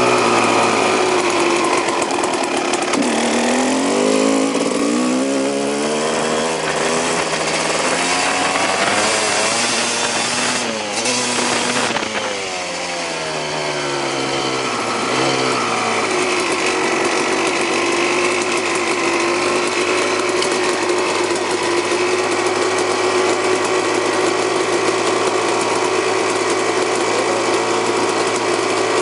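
2001 Honda CR250 two-stroke dirt bike engine running under a rider, revving up and falling back again and again, then holding a steady note for the second half.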